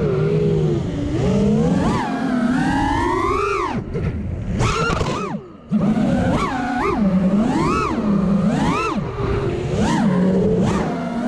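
Brushless motors of a 5-inch FPV freestyle quadcopter (T-Motor F60 Pro II 2700kv on Gemfan 51433 props) whining, the pitch swooping up and down with the throttle through flips and rolls. About five seconds in the throttle is cut and the sound drops away briefly, then comes back sharply as power is punched again.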